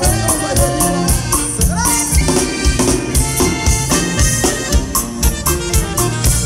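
Live norteño band music with saxophone and accordion over bass and drums, playing a steady beat. It is loud, as picked up by a phone microphone in the hall.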